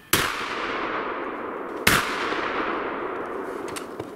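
Two gunshots from a hunting gun, fired at a crossing roe deer, the second a little under two seconds after the first; each leaves a long echo rolling off through the forest.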